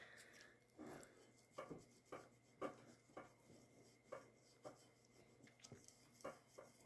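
Faint, short rubbing strokes of a fingertip pushing paint through a silkscreen stencil pressed onto a clay slab, about a dozen strokes at uneven intervals.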